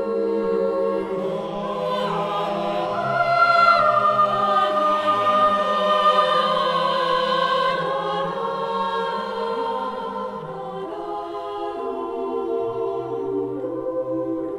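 Choir singing slow, sustained chords that swell louder a few seconds in, then soften.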